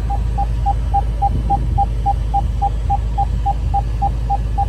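Range Rover parking-aid warning beeping quickly and evenly, about three to four short beeps a second at one pitch, the rapid rate a sign of an obstacle close to the sensors. A steady low hum lies beneath.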